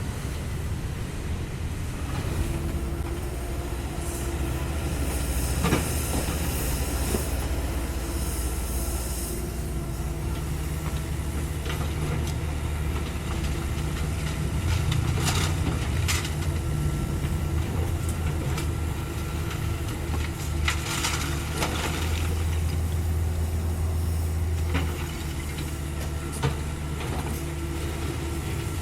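Cat 305.5E2 mini excavator's diesel engine running steadily under working load, its hum swelling at times as the hydraulics work. A few short knocks of rubble and concrete being struck or scraped sound over it, with bursts of hiss.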